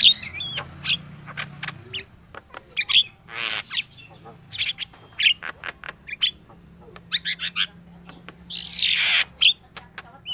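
Yellow-vented bulbul (crucukan) singing actively, a busy run of short chirps and bubbling whistled phrases with harsh rasping notes, the loudest about nine seconds in. This kind of active song is used as lure audio to draw in or stir up other birds. A faint low hum sits underneath.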